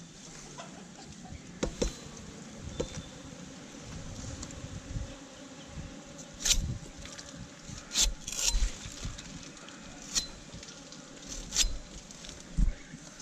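A tapping knife and the toddy collection pot knock and scrape against a coconut palm's bound flower spathe in a few sharp clacks, most of them in the second half. A steady buzzing hum runs beneath them.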